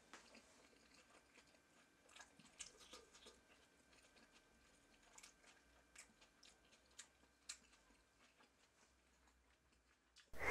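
Near silence: faint room tone with a few scattered soft clicks, then a short, sudden loud burst of sound right at the end.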